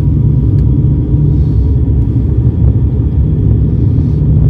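Cabin drone of an ATR 72-600's PW127M turboprop engines and propellers on approach: a loud, steady low rumble.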